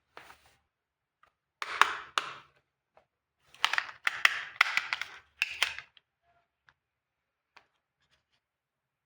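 Small hard plastic toy pieces being handled: sharp clicks mixed with rustling scrapes in several bursts, loudest in the middle, then a few faint ticks near the end.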